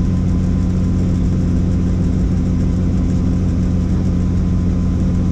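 Helicopter in flight: a steady, unchanging drone of rotor and engine with a strong low hum.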